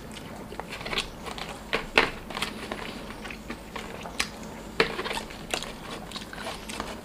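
Fingers picking and scraping leftover rice from a plastic meal tray, with eating sounds in between: scattered sharp clicks and taps, the loudest about two seconds in and again near five seconds.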